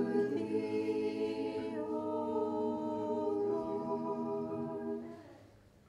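A few voices singing an unaccompanied liturgical response in long held chords, changing pitch twice and dying away about five seconds in.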